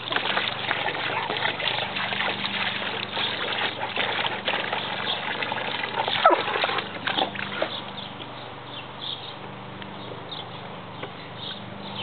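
Garden hose water splashing into a plastic kiddie pool as a dog snaps and bites at the stream, with quick wet chomps and splatters. The splashing eases about eight seconds in, leaving fainter trickling.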